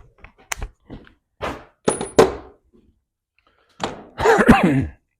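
Tools and metal parts being handled: a string of separate knocks and clatters, then near the end a louder, longer sound with a wavering pitch.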